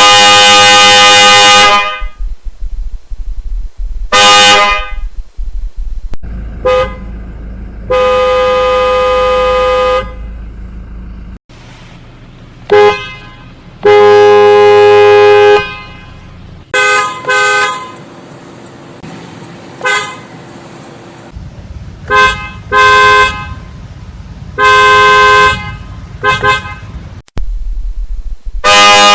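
Genuine Toyota OEM car horn made by Maruko Keihoki, honked in a string of blasts. Some blasts are held for one to two seconds, others are quick taps, including a double toot and three rapid beeps.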